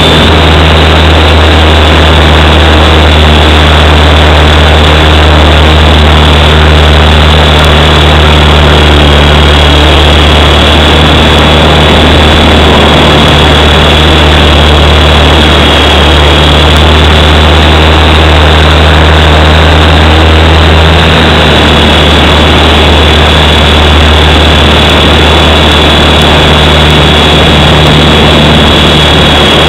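Small electric RC helicopter, a WLtoys V912, in flight, heard from a camera mounted on its own frame. A steady high motor whine sits over a loud, deep rotor hum and rushing rotor wash.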